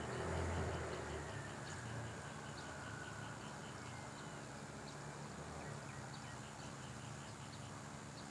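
Faint rural morning ambience: birds chirping, with one repeating a short chirp about five times a second for the first few seconds, over a low steady hum; a low rumble fades out about a second in.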